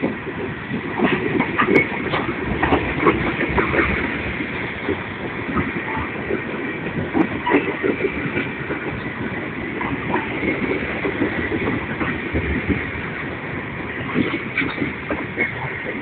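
Loaded freight train tank cars rolling past at close range: a steady rumble of steel wheels on rail, with frequent short, sharp clicks and clatter from the wheels and couplers.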